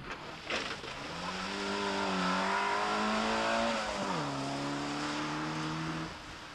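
Opel Manta B rally car's engine running at high revs as it drives past. The engine note drops sharply about four seconds in, holds steady again, then fades away near the end.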